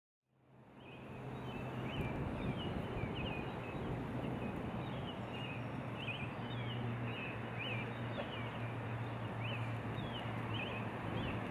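Outdoor ambience fading in over the first second: a steady noise bed with a low steady hum, and many short, high chirps of small birds repeating every fraction of a second.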